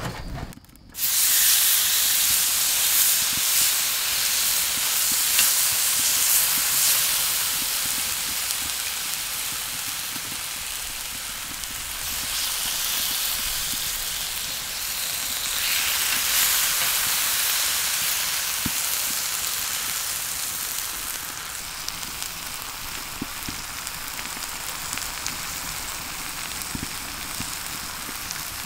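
Sauce-marinated meat sizzling on a ridged grill pan set on a wood stove: a steady frying hiss with scattered small pops. It starts suddenly about a second in, fades somewhat, then swells again about halfway through.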